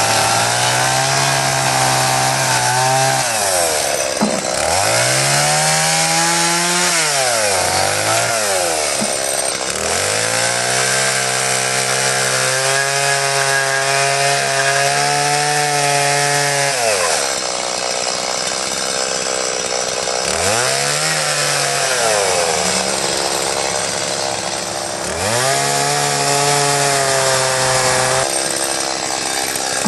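Two-stroke chainsaw cutting into a wooden log, held at high revs and repeatedly dropping back to idle before revving up again, about six times.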